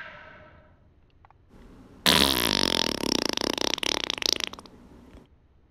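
A long, loud fart with a rapid flutter, starting suddenly about two seconds in and trailing off after roughly three seconds.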